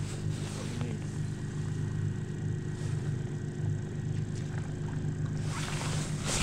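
Boat motor running with a steady low hum, and a brief rushing noise near the end.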